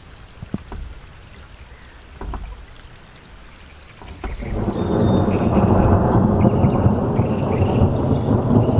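Thunder from a close anvil crawler lightning discharge. A few faint cracks come first, then about four seconds in a loud, crackling low rumble builds and rolls on.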